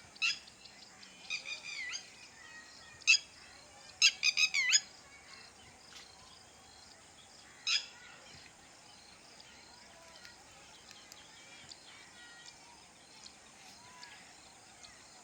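Birds calling: several loud, sharp, high calls in the first eight seconds, one a quick run of about five notes just after four seconds in, then only faint scattered chirps.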